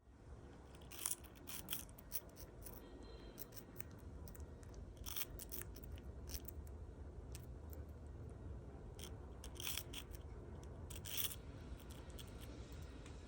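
Faint scattered short scratches and clicks, a handful standing out, over a low steady hum of room noise.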